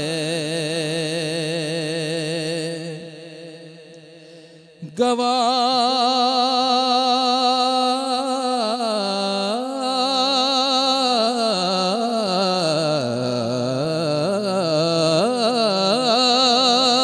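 A solo voice singing a naat, drawing out long wavering notes in an ornamented melody with no words between lines. The voice fades away about three seconds in and comes back strongly about five seconds in.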